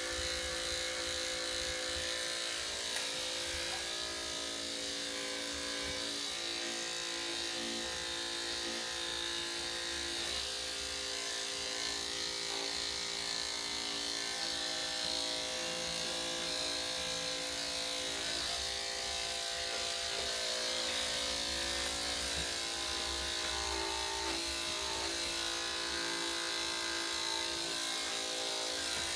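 Electric dog grooming clippers running steadily, with their pitch dipping slightly now and then as the blade works through the coat.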